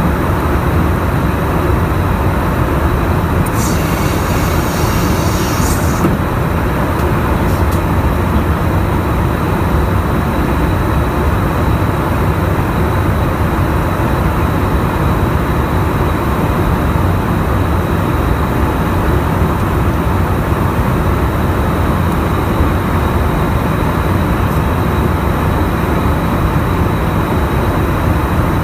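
Steady in-flight rush of airflow and jet engine noise inside an aerial refueling tanker's boom operator station, with a thin steady high whine. A brief high hiss lasting about two seconds comes in a few seconds in.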